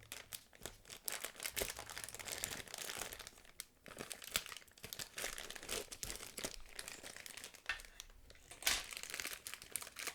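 Packaging crinkling and rustling as a model kit's components are unwrapped by hand, with irregular crackles and sharp clicks throughout.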